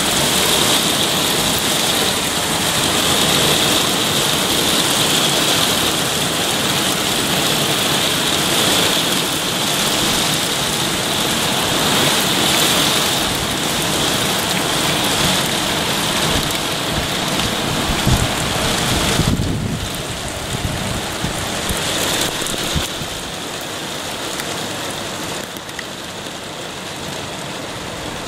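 Very heavy rain pelting down on garden shrubs and a roof, a dense steady hiss that eases a little about two-thirds of the way through.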